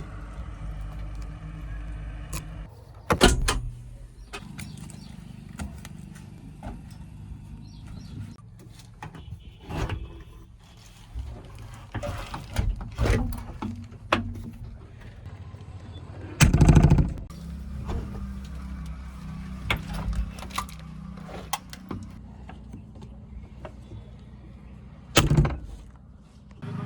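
JCB backhoe loader's diesel engine running steadily, with a few loud metallic knocks and clanks from the machine's working parts.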